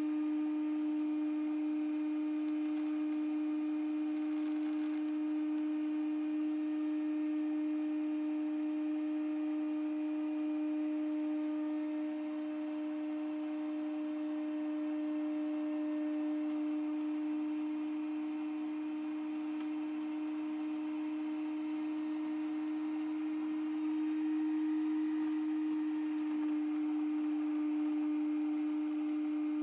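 EveryGrow electric grain mill running steadily, its motor giving a constant hum while it grinds worm chow pellets.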